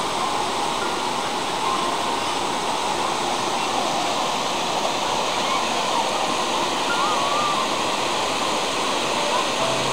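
Steady, unbroken rush of white water over river rapids.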